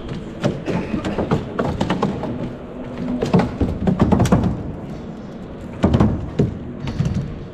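Irregular knocks and thumps, in clusters, of a four-legged robot's feet striking hard obstacle-course surfaces. A faint low hum runs underneath.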